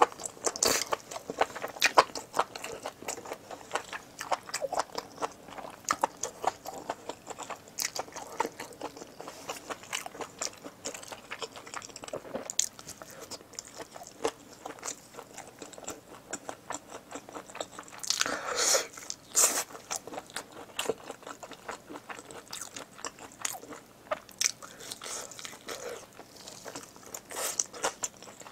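Close-miked chewing of spicy braised pork trotters and noodles: a steady run of quick mouth clicks and bites, louder for a moment about two-thirds of the way through.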